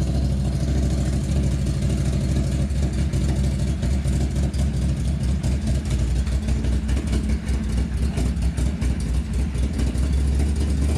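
2018 Can-Am Maverick X3 XRS side-by-side's turbocharged three-cylinder Rotax engine idling steadily.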